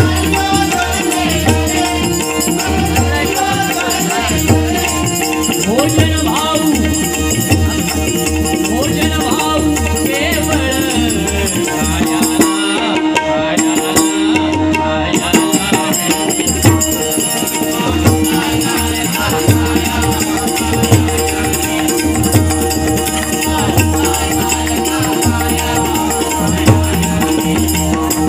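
Live Marathi devotional bhajan music: a harmonium holds steady notes while pakhawaj and tabla play a running rhythm. A voice sings at the start and again about ten seconds in.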